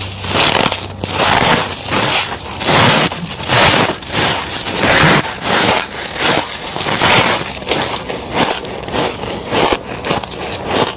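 Thick freezer frost being chewed close to the mic: a steady run of crisp crunches, about one and a half a second.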